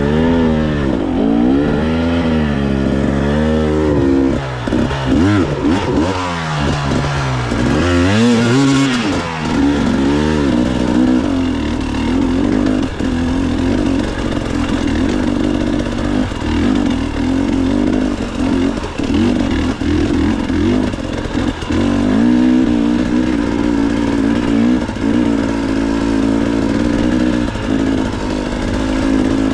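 Dirt bike engine under way. For about the first ten seconds the revs rise and fall repeatedly with the throttle, then the engine holds a steadier pitch, with a few short knocks from the bike over rough ground.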